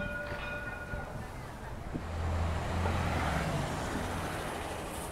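Street traffic on a wet road: a short steady tone at the start, then a heavy vehicle passes from about two seconds in, its low engine drone and tyre hiss swelling and fading away.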